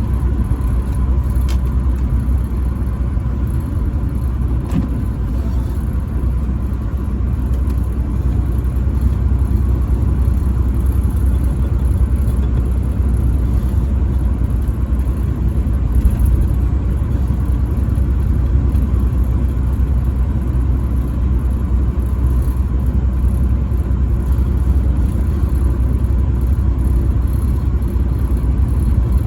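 Semi-truck cruising steadily on the highway: a constant low engine and road rumble, with a faint steady whine above it.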